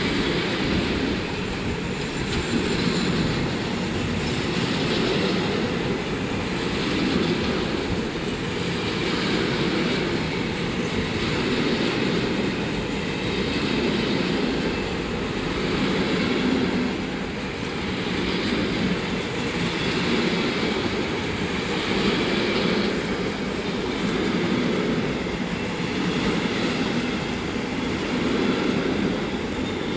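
Freight train of high-sided box wagons rolling slowly past, wheels clattering over the rail joints. The sound swells in an even rhythm about every two seconds as each wagon's bogies go by.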